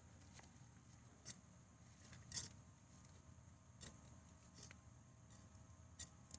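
Near silence with a few faint, scattered clicks and rustles, the loudest about two and a half seconds in: hands working through loose soil and pulling sweet potatoes off a root.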